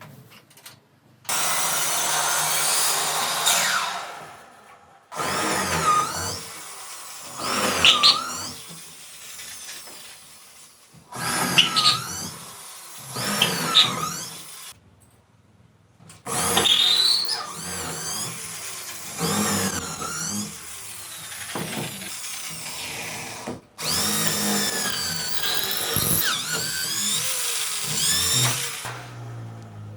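Electric drill running in repeated bursts of a few seconds each, its pitch rising and falling as it speeds up and slows down, with short pauses between.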